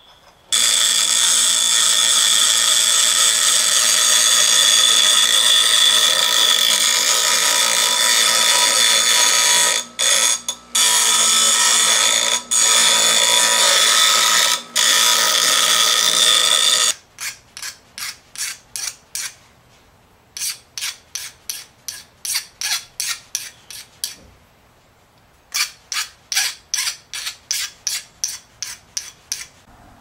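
Bench grinder grinding a small steel piece held in locking pliers against the wheel: a steady, loud grinding noise with a few brief breaks, stopping a little over halfway through. It is followed by three runs of quick, evenly spaced hand-tool strokes, about three or four a second.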